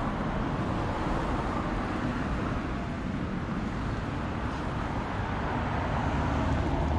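Steady noise of road traffic passing on the street.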